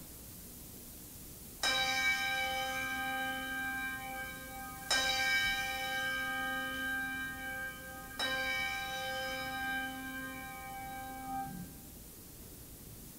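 A bell struck three times, about three seconds apart, each strike ringing on and fading slowly into the next.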